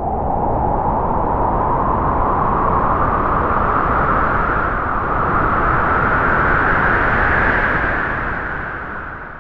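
A gust of wind blowing, a rushing noise whose pitch rises slowly as it strengthens, then dying away near the end.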